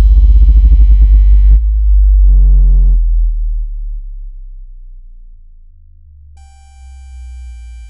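Synthesized water-eject tones: a very deep bass tone under dense layered pitches. About 1.5 s in the upper layers stop, a short chord sounds, and the bass fades down. About 6.5 s in a steady high tone with overtones comes in. The tones are made to vibrate earbud speakers so that water is pushed out.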